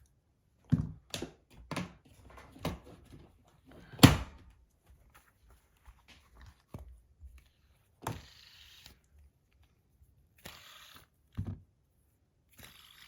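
Handling noises as objects are fetched and set down: a run of clicks and knocks, one louder thunk about four seconds in, then three short rustling scrapes.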